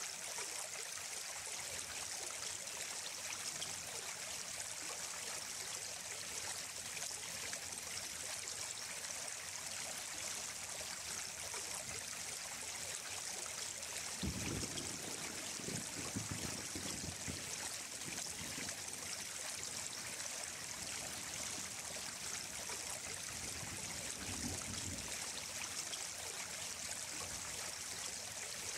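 Running water of a stream flowing steadily, an even hiss. Brief low rumbles come about halfway through and again near the end.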